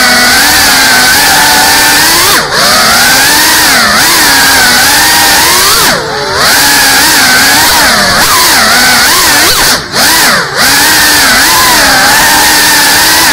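GEPRC CineLog 35 cinewhoop FPV drone's brushless motors and propellers whining in flight, the pitch rising and falling with the throttle. Several brief dips come where the throttle is cut, about two and a half, six and ten seconds in.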